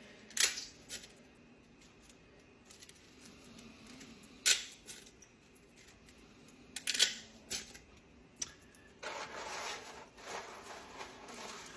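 Dry fettuccine noodles snapped by hand in small bunches: a few sharp cracks several seconds apart, then a longer rustling stretch near the end.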